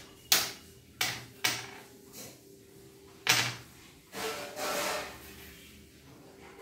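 Carrom striker and wooden coins clacking on a carrom board: a series of sharp knocks in the first second and a half, another about three seconds in, then a longer scraping rustle as the coins are slid together on the board's surface.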